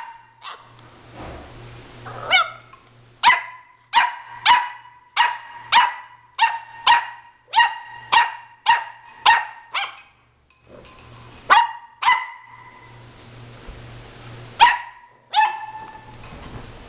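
Boxer dog barking: a steady run of sharp, high-pitched barks, about two a second, then a short pause and a few more barks near the end.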